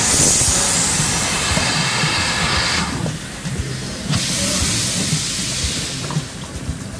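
Steam locomotive moving off with steam hissing loudly from the cylinders. The hiss cuts off about three seconds in and comes back in a second burst about a second later, which fades near the end.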